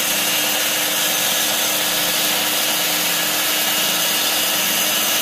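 Evolution 400 W power file (a narrow-belt file sander) running at a turned-down speed with its sanding belt spinning, a steady, unchanging hum and hiss, while the belt tracking is set.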